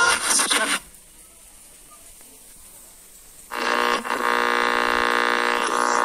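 Radio sound effect: a loud burst of radio audio cuts off abruptly under a second in, leaving a faint hiss, then a steady buzzing tone with many overtones starts about three and a half seconds in and holds.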